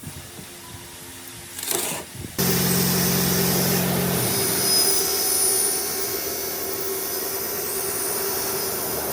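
A power tool switches on abruptly a couple of seconds in and runs steadily and loudly with a strong hiss and a steady hum, after a short noise just before it.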